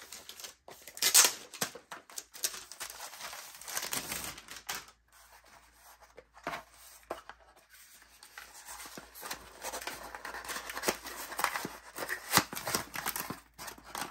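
Clear plastic packaging crinkling and a small cardboard box rustling and scraping as it is slid out of its bag and its flaps are folded open by hand, in irregular bursts, loudest about a second in.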